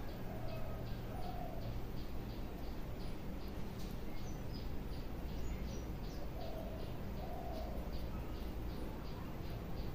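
A dove cooing twice in the background, a short two-part coo each time about six seconds apart, with a few short high bird chirps in between. Under it runs a steady low rumble and a faint, fast, even ticking of about three a second.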